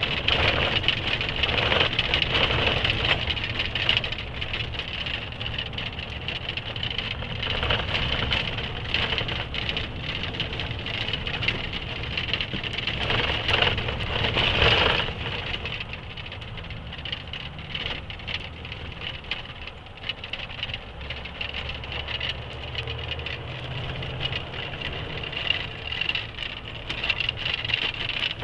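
Truck engine running, heard from inside the cab while it drives over a rough gravel road, with the cab rattling and knocking over the bumps.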